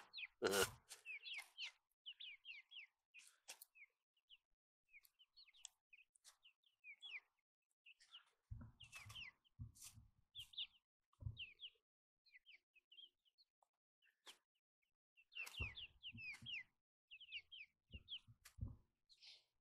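Young chickens cheeping softly as they feed, many short high chirps that slide downward, scattered throughout. Clusters of sharp taps and rustles come about halfway through and again near the end, as beaks peck popcorn from a plastic bag.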